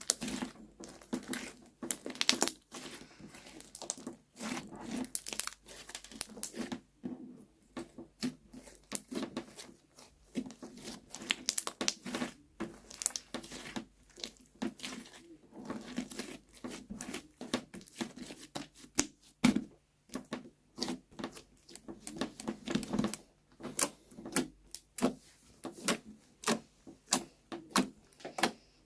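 Slime being squeezed and worked by hand, making an irregular run of sticky clicks, crackles and small pops.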